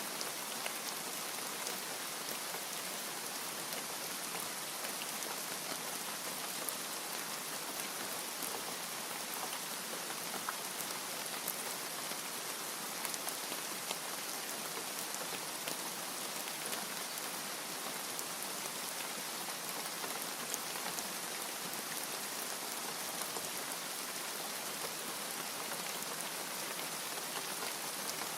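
Steady rain falling, an even hiss with many fine drop ticks throughout.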